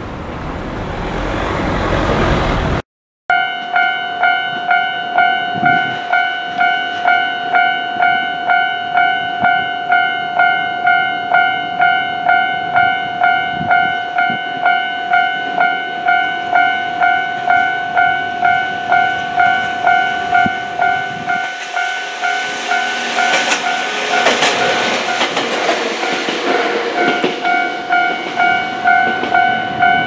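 Japanese level crossing warning bell ringing steadily, a pitched electronic clang repeating about one and a half times a second, as a train approaches and its rushing noise swells for a few seconds near the end. It opens with a few seconds of rising rushing noise before a sudden cut.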